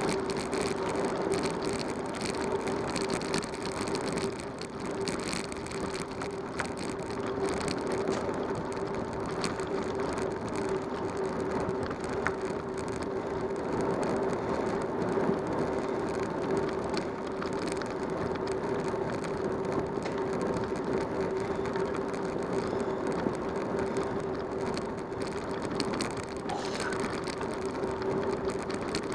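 Bicycle rolling along a rough paved road: continuous tyre and drivetrain noise with a steady hum and constant fine rattling and clicking.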